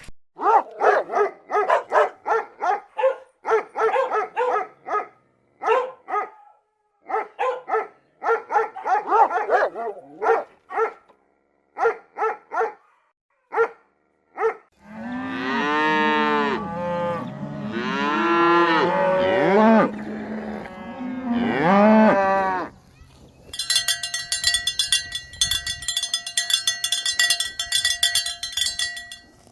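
Cows mooing, several long calls that rise and fall, after about 14 seconds of rapid short pitched animal calls. Near the end a cowbell rings repeatedly for several seconds.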